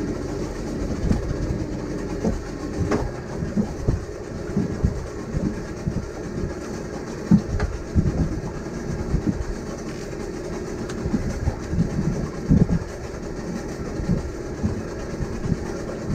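Noise on a small boat in wind and chop: a steady low rumble with irregular low thumps as wind buffets the microphone and water slaps the hull, plus a few sharp clicks.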